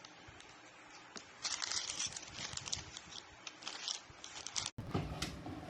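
Plastic packaging crinkling and rustling, with many small sharp plastic clicks, as the bagged keycaps are handled. It starts about a second and a half in, and a cut shortly before the end brings a fuller, noisier stretch of handling.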